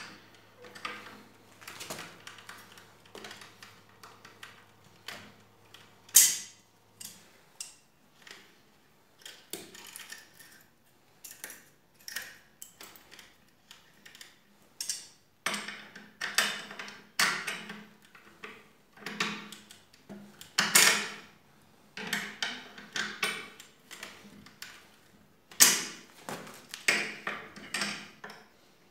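Pliers clicking and scraping against a long steel bolt and its nut as they are worked by hand to tighten it through a wooden chair frame. The metallic clicks come irregularly, about one or two a second, with a few sharper clinks among them.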